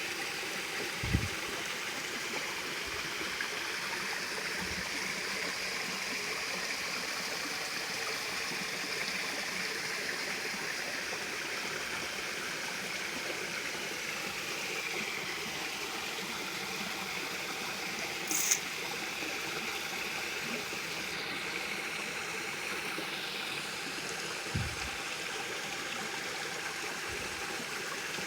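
Water falling and running over rocks at a small waterfall: a steady rush with trickling. A couple of brief low bumps, about a second in and near the end, and one short sharp click past the middle.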